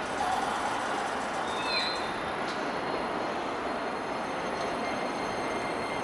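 JR West 225 series 5000-subseries electric train starting to pull out of the station, its running noise steady with a thin high tone coming in near the end.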